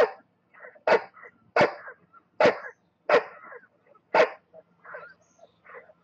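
A series of short, sharp vocal sounds: six loud ones spaced irregularly, roughly one every second or less, with fainter ones in between.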